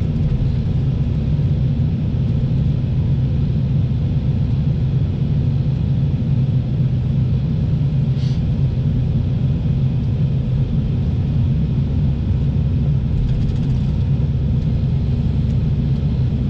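Excavator's diesel engine running steadily, a low rumble heard from inside the operator's cab. A faint brief click comes about eight seconds in.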